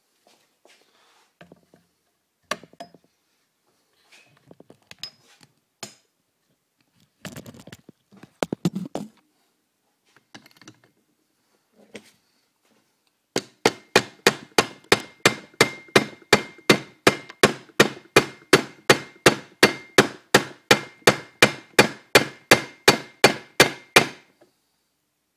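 A hammer striking metal in a steady run of blows, about three a second for some ten seconds, each blow ringing briefly. Before the blows there are scattered clinks and knocks of metal tools and parts being handled.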